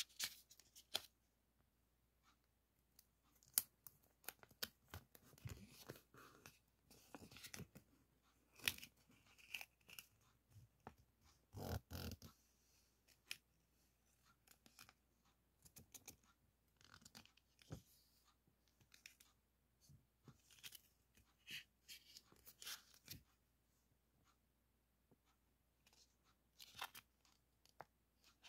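Plastic stationery packaging and masking-tape strips being handled on a cutting mat: soft rustling and small clicks in short, irregular bursts.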